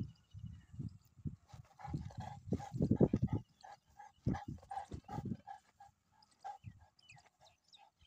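Pakistani Bully Kutta dog making a rapid run of short, repeated vocal sounds. Louder, deeper sounds come about two to three seconds in.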